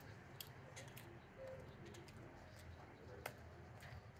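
Near silence: faint room tone with a few sharp little clicks scattered through it.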